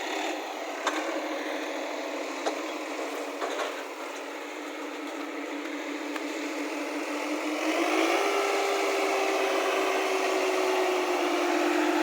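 Tractor engine running steadily, with a few sharp knocks in the first few seconds. About eight seconds in it revs up slightly and holds at the higher speed, a little louder.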